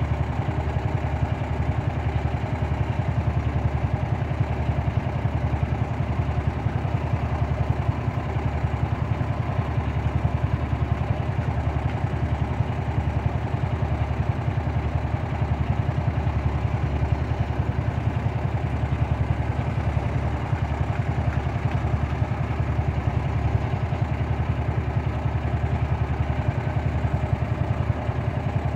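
An engine idling steadily, with an even low pulsing throb.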